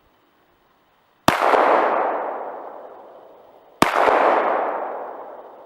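Two shots from a Sig Sauer P226 pistol, about two and a half seconds apart. Each crack is followed by a long echo that fades over about two seconds.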